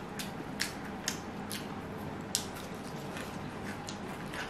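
Eating sounds of people chewing fried cutlets: irregular short, wet mouth clicks and smacks, about two a second.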